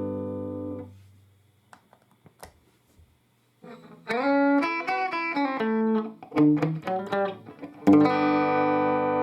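Electric guitar played through a combo guitar amplifier. A held chord dies away within the first second, followed by a short pause with a few faint clicks. A run of single notes starts about three and a half seconds in, and near the end a full chord is struck and left ringing.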